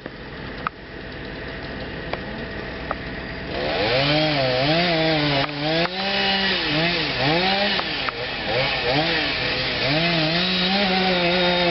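Chainsaw engine, quieter at first, then loud from about three and a half seconds in, its pitch dipping and recovering again and again as the chain bogs down in the wood and frees up while cutting the tree.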